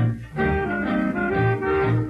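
Vintage 1920s jazz dance-band recording with trumpet and trombone over a steady beat.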